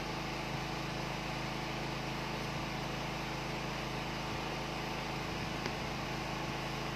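Steady mechanical hum with an even hiss, unchanging throughout, with two faint ticks, one about half a second in and one near the end.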